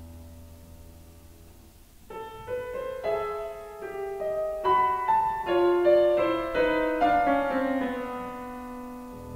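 Grand piano played solo: a held chord dies away, then about two seconds in a recitative passage enters, a melody of separate notes one after another that swells and settles onto a sustained note near the end.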